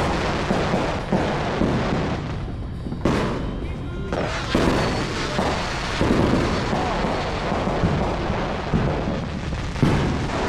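Neighbourhood fireworks going off almost without pause: many overlapping bangs, booms and crackles running together into a continuous din.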